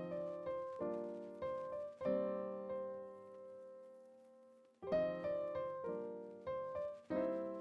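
Background music: piano playing chords and short phrases, with a long held chord that fades away in the middle before the playing resumes.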